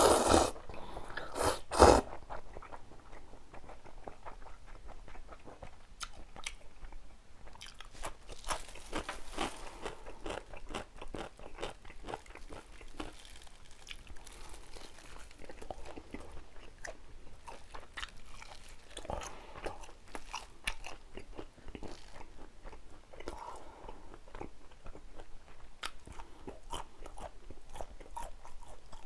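Close-miked eating: a person chewing and biting food, with many short wet mouth clicks and crunches. There are two louder sharp knocks in the first two seconds.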